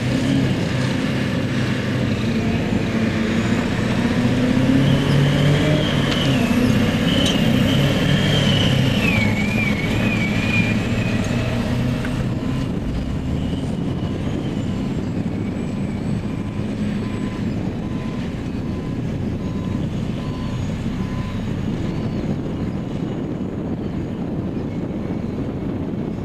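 Caterpillar 631E wheel tractor-scraper's diesel engine running as the machine drives past and away, loudest in the first half and slowly fading as it recedes. A wavering high whine rides over the engine for several seconds in the first half.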